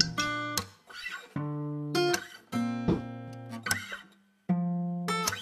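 Music: a guitar beat of strummed chords, each struck and left to fade, with a short break about four seconds in.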